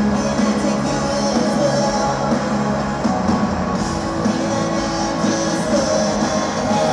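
Live doom-rock band playing loud distorted electric guitars, heard from the audience in a large hall. The chords shift about three seconds in.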